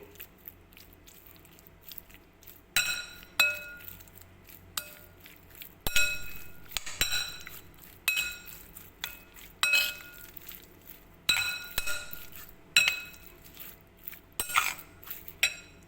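A utensil clinking against a mixing bowl, over and over at an irregular pace, as spices and curry paste are stirred into raw chicken; each strike leaves a short ring.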